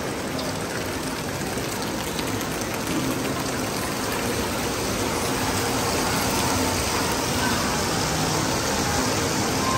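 Steady rushing and splashing of water at a water park's slides and lazy river.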